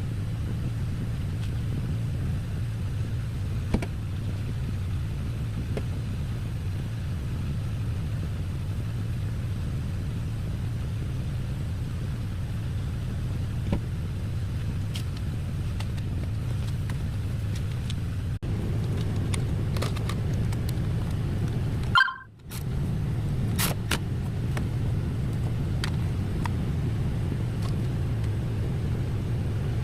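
Steady low rumble like a running motor vehicle, with a few light clicks scattered through it. It cuts out briefly about two-thirds of the way through, then resumes.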